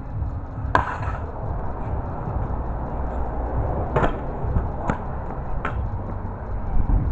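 Stunt scooter on concrete: sharp clacks of the deck and wheels hitting the ground, one about a second in and three more spaced between four and six seconds, over a low rumble.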